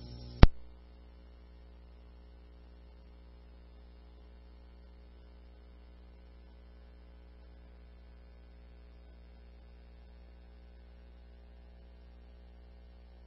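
A sharp click about half a second in, then a steady low electrical mains hum on a police radio recording with no traffic.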